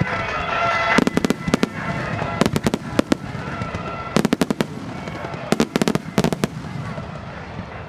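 Star mine fireworks barrage: shells bursting in rapid volleys of sharp bangs, about four clusters of reports a second or so apart.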